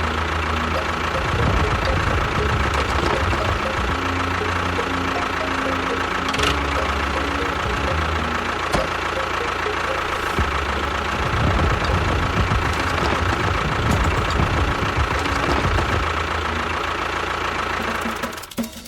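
An engine running steadily with a knocking beat, cutting off abruptly near the end.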